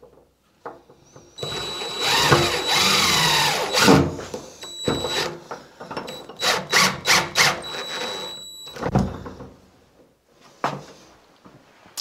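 Impact driver driving a screw into a wooden door to fix a latch: one steady run of about two and a half seconds with a high whine, then a string of short trigger bursts, followed by a single knock.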